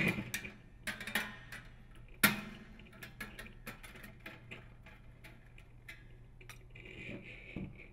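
Small clicks and ticks of a screwdriver working a screw in a bath fan heater's sheet-metal housing, with one sharper metallic knock about two seconds in.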